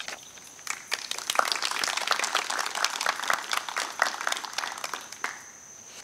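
A small audience applauding. The clapping starts about a second in and dies away about five seconds in, with crickets chirping steadily behind it.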